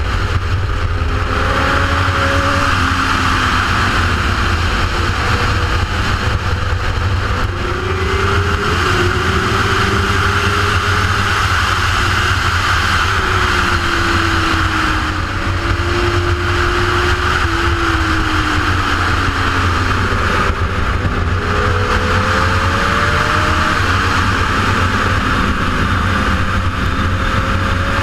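Steady rushing wind noise on an onboard GoPro's microphone at track speed on a sportbike, with the motorcycle engine's note faintly underneath, rising and falling in pitch as the rider accelerates and shifts.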